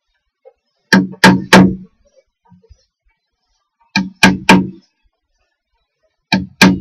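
Hammer striking a wood chisel, cutting a square hole into a wooden beam: three quick blows about a second in, three more about four seconds in, and two near the end.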